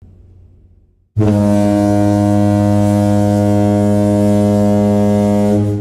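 One long foghorn blast: a single steady low horn tone that starts suddenly about a second in and holds for about four and a half seconds before fading.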